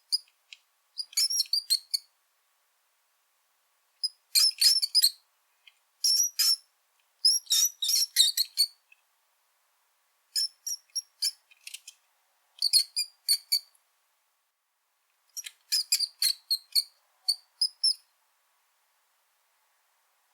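Brown rat (Rattus norvegicus) squeaking: bouts of short, high-pitched squeaks, several in quick succession, separated by silent gaps of one to two seconds.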